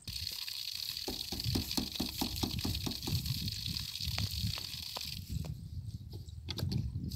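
Water gushing from a storage tank's outlet pipe and splashing onto the ground, with a quick, even run of gurgles, about four a second, through the middle.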